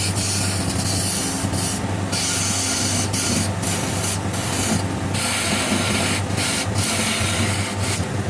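Wood lathe running, with a turning chisel cutting into the spinning wood: a steady motor hum under a dense hiss of cutting. The hiss drops out briefly several times as the tool eases off the wood.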